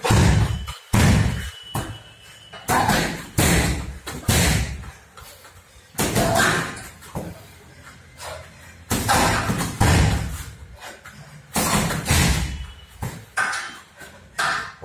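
Gloved punches, knees and kicks landing on a hanging heavy punching bag, each strike a loud dull thud. The hits come in irregular combinations of one to three, with short pauses between.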